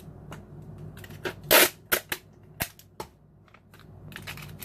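Clear sticky tape being pulled off the roll and torn, with a series of sharp clicks and crackles. The loudest sound is a brief rip about one and a half seconds in.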